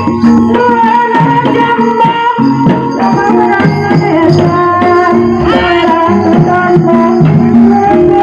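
Kuda lumping (jaranan) accompaniment music: a steady, fast pattern of hand drums and metal percussion under a held melody line that slides in pitch.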